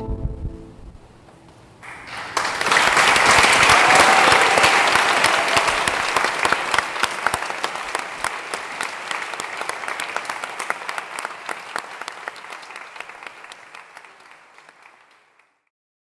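The orchestra's final chord rings off, then after a short hush a large audience breaks into applause about two seconds in. The clapping is loudest early on and slowly thins out, stopping just before the end.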